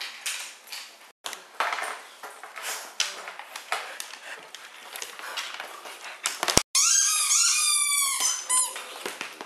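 Siberian huskies chewing on squeaky bottle-shaped dog toys: scattered crackly chewing and mouthing sounds, then about seven seconds in a quick run of repeated squeaks from the toy.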